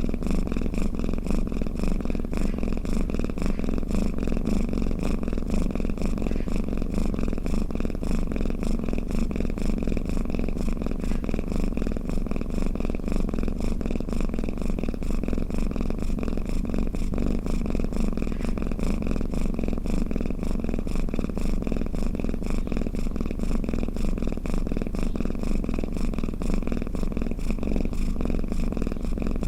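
Domestic cat purring steadily without a break.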